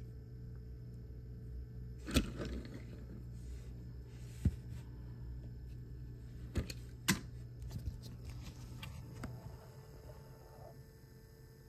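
Steady low hum with a few sharp clicks and taps scattered through it, the loudest about two seconds in and two close together past the middle.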